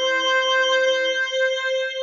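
Harmonica holding a long final note over an accompaniment. The accompaniment drops out about two thirds of the way through, and the harmonica note cuts off suddenly at the end.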